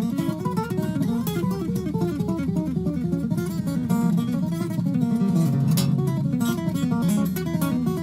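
Background music: an acoustic guitar playing a quick melody with strummed chords.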